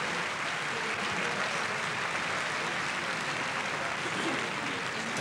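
A large group of people applauding steadily, a dense, even patter of many hands clapping.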